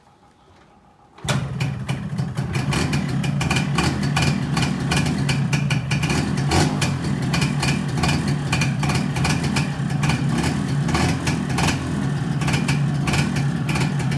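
Small underbone motorcycle engine starting up about a second in, abruptly, and then running steadily.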